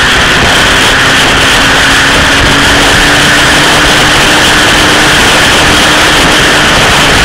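Steady wind rush over the microphone of a motorcycle riding at road speed, with the Honda CBR1000F's inline-four engine running underneath at a steady cruise, its note edging up slightly in the first few seconds.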